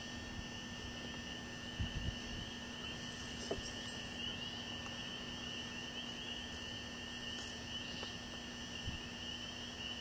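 Steady, high-pitched chorus of crickets trilling at night, with a faint low hum underneath and a few soft handling bumps about two seconds in.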